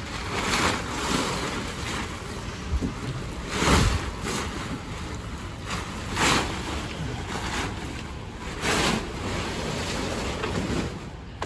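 Plastic tarp crinkling and rustling as it is dragged back off a car body, with a few louder swishes along the way.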